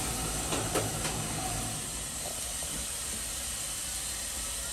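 Steady, even hiss of an open restaurant kitchen at work, with a few faint clicks in the first second.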